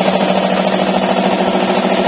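Two-piston reciprocating air compressor, belt-driven by a 2 HP electric motor, running steadily with a rapid, even pulsing from the pistons as it compresses air into its tank.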